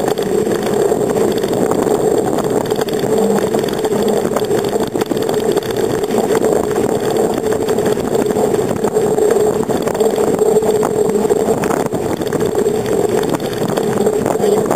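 Steady rushing of wind and road noise picked up by a handlebar-mounted camera on a moving bicycle, with small jolts from bumps in the asphalt.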